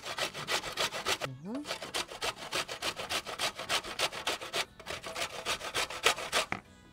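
A cocoa ball being grated fast on a stainless steel box grater: quick, even rasping strokes, about five or six a second, with a short break after about a second, stopping shortly before the end.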